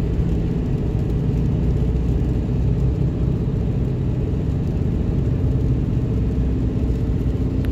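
Steady low engine and road drone heard from inside a vehicle's cab while driving at highway speed.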